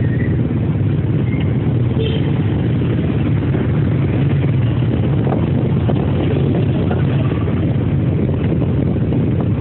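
Steady low rumble of a car's engine and road noise as it drives along.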